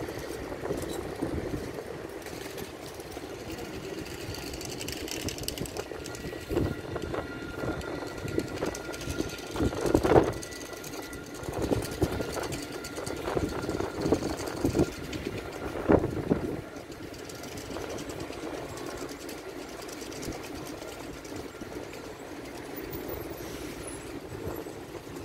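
Tram running along its rails: a steady rolling noise with a faint whine, and a run of knocks and clacks from about six to seventeen seconds in, loudest around ten and sixteen seconds.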